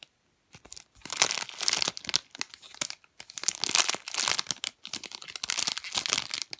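Plastic packaging of a squishy toy crinkling and rustling as it is handled and opened, in two long spells.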